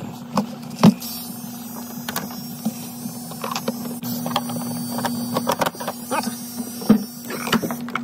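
Plastic freezer evaporator cover being wedged and fitted back into place, with scattered clicks and knocks, over a steady low hum.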